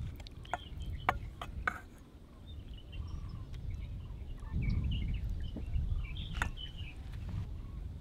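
Small birds chirping on and off over a steady low rumble, with a few sharp clicks or knocks, mostly in the first two seconds and one more near the end.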